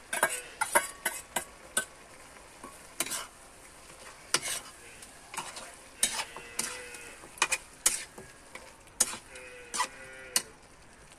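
A metal spoon stirring chicken karahi in a metal karahi, knocking and scraping against the pan at irregular intervals, over a light sizzle of frying.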